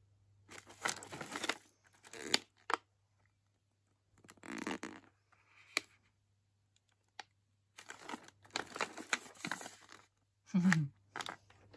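Plastic stand-up pouch of dog biscuits crinkling and rustling in short bursts as it is handled and turned over in the hands, with a few sharp crackles.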